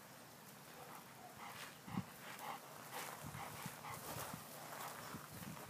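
Two dogs scuffling and playing on leash on wood-chip mulch: paws and footsteps crunching irregularly, with a few soft thumps.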